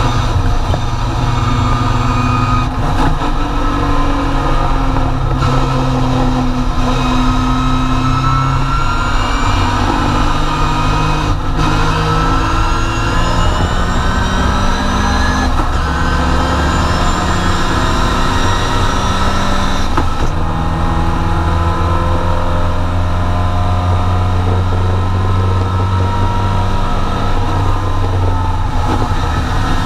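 Triumph TR4 race car's four-cylinder engine at full racing speed, heard from inside the cockpit: the revs climb and drop back several times as the driver changes gear.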